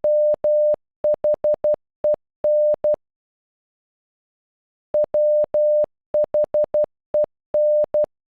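Morse code for the word "when" (.-- .... . -.) sent as a steady mid-pitched beep tone in short dots and long dashes, played twice with a pause of about two seconds between.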